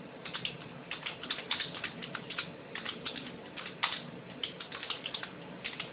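Typing on a computer keyboard: an irregular run of light key clicks, several a second.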